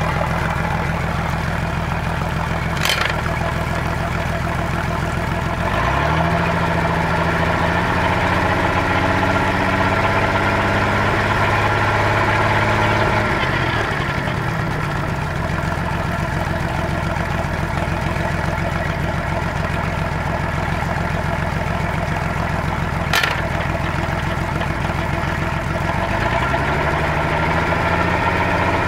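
Boat engine of an OMC Cobra sterndrive running on the trailer, on a flushing hose, with the propeller spinning, as a test run after installing a replacement lower unit. Engine speed rises about six seconds in, falls back around fourteen seconds, and rises again near the end, over water spattering from the drive; two sharp clicks are heard, one early and one late.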